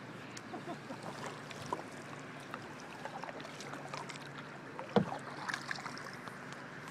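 Canoe paddling on calm river water: soft paddle strokes with drips and small splashes, and scattered light ticks. One sharper knock comes about five seconds in.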